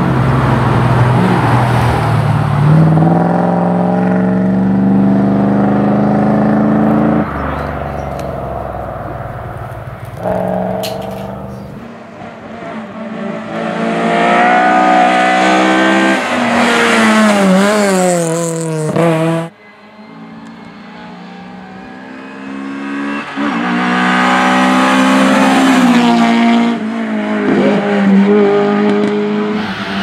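Competition cars on a hillclimb run accelerating hard past, one after another, with abrupt cuts between them. First a Chevrolet Corvette C3's V8 pulls up through the gears with a shift about seven seconds in. Then an Opel Ascona rally car's four-cylinder revs high with quick shifts, stops dead at a cut, and another car's engine accelerates through the gears.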